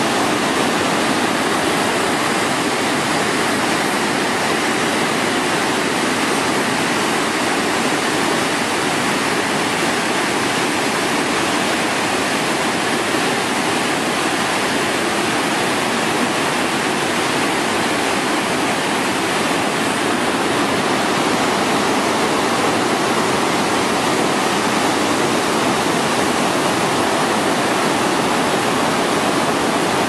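Waterfall on a mountain river, heard close up: white water pouring through a rocky chute in a steady, loud rush with no let-up.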